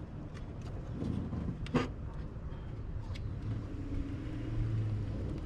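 Steady low rumble of a motor vehicle in the background, with one sharp click a little under two seconds in.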